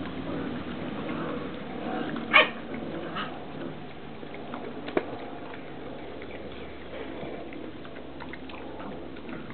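Young puppies playing: about two seconds in one puppy lets out a single short, loud yelp, with a fainter cry a moment later, and a sharp click just before the five-second mark.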